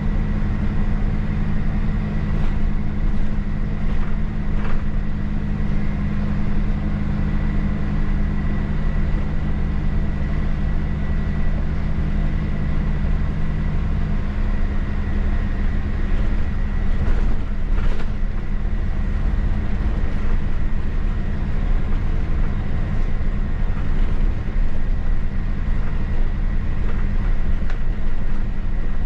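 Mercedes-Benz city bus driving, heard from the driver's cab: steady engine hum and road noise, with a faint high steady whine. About halfway through, the engine note changes as one of its tones drops away.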